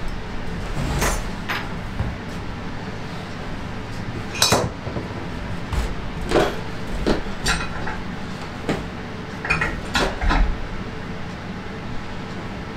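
Metal hand tools clinking and clattering as they are handled and set down: about a dozen sharp, irregular clinks, over a low steady hum.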